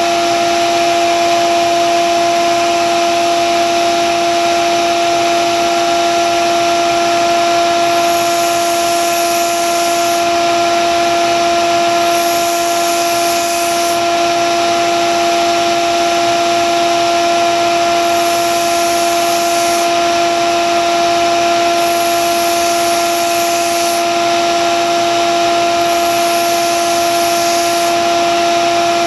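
Grizzly belt sander running with a steady motor hum while a Wüsthof kitchen knife's steel blade is ground against the belt in passes of about two seconds each, five in all from about eight seconds in, each adding a hiss of steel on abrasive.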